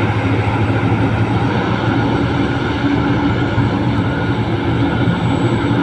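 Large hydraulic mining excavator's diesel engine running steadily under load, a constant deep hum with a dense mechanical drone over it.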